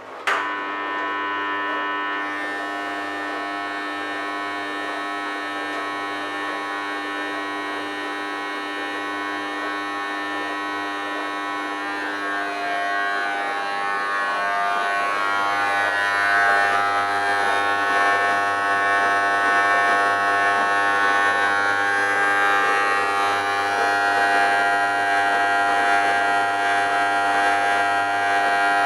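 Thor WP5G benchtop dishwasher making a harsh buzzing whine made of several steady tones. The owner calls it a terrible noise and does not know its cause. It starts abruptly right at the beginning and grows louder about halfway through.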